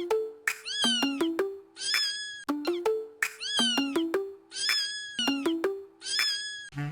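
Cat meows, short rising-and-falling calls, repeated in a regular rhythm over a simple music backing, like a meme meow song.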